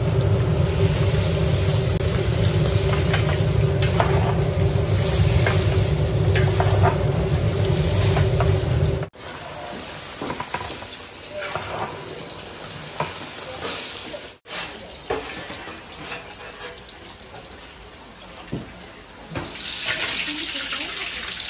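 Fish deep-frying in hot oil in a cauldron: steady bubbling and sizzling, with a low steady rumble for the first nine seconds. After that it is quieter, with occasional small clicks of the metal skimmer against the pan, and the sizzling grows louder near the end.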